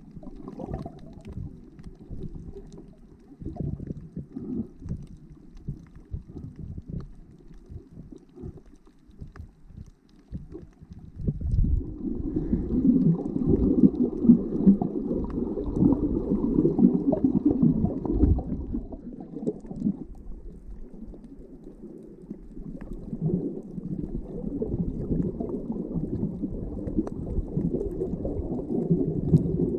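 Muffled underwater sound picked up by a camera held below the surface while snorkeling: low rumbling and gurgling of water moving against the camera housing, growing louder about a third of the way in.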